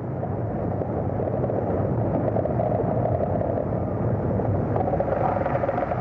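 Steady low rumble of lava erupting under the sea, a documentary sound effect.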